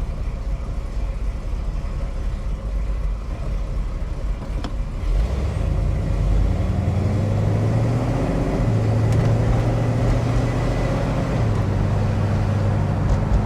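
The 428 Cobra Jet V8 of a 1969 Shelby GT500 Mustang rumbles while the car drives, heard from inside the cabin. About five seconds in it gets louder and its pitch climbs as the car accelerates, then the pitch drops back after about eleven seconds.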